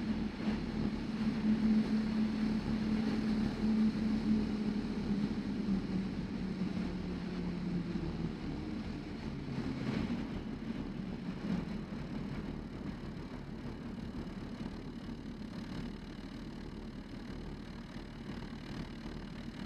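Van's RV-10 light aircraft's piston engine running at idle during the landing rollout and taxi, a steady drone that drops in pitch about eight seconds in and slowly fades.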